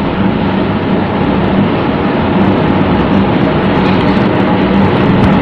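Steady loud background noise, a rumble and hiss with a constant low hum, unbroken and without distinct events.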